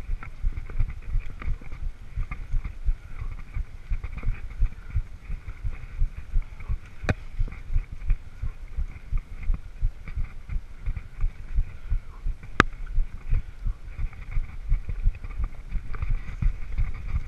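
Mountain bike ridden over rough forest singletrack, heard from a camera on the bike or rider: an uneven low thudding rumble of bumps and jolts several times a second over tyre noise. Two sharp clicks stand out, about seven seconds in and again near thirteen seconds.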